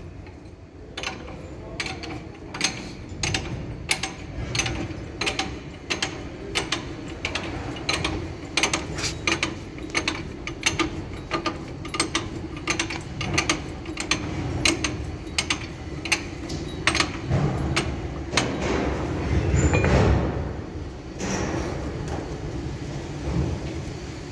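Repeated sharp metallic knocks and clinks, irregular at about one to three a second, over a steady low hum in a locomotive repair depot. A louder low rumble swells briefly about twenty seconds in.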